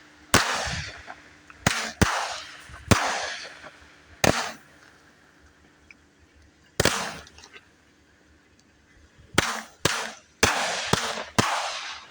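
Fireworks going off: about a dozen sharp bangs at irregular intervals, each trailing off in a ringing echo, with a lull of a couple of seconds in the middle and a quick run of bangs near the end.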